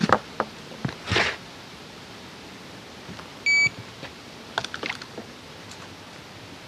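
A single short, high electronic beep from a carp-style bite alarm on the rod rest, about three and a half seconds in. Before it come a few sharp clicks and a brief swish of rod and tackle being handled, and after it a few more clicks.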